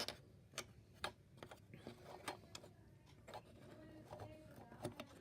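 Scattered light clicks and taps of small hard parts being handled: rotary-tool grinding tips and their little plastic case being picked up and set down.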